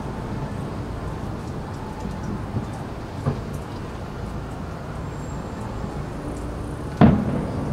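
Steady low outdoor rumble of a fireworks display between shells, with a faint pop about three seconds in, then one sharp firework boom near the end that rings on briefly.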